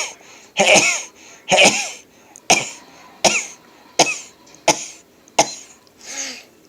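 A man's sneezing fit: a rapid string of about eight loud, voiced sneezes, one every second or less. The later ones are shorter and sharper, and the last is fainter.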